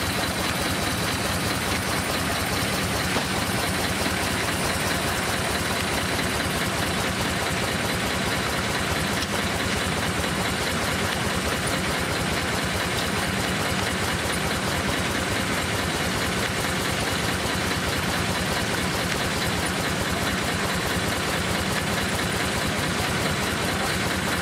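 A steam traction engine running steadily on the belt, driving a circular sawmill through a long flat drive belt; an even machine noise that does not change.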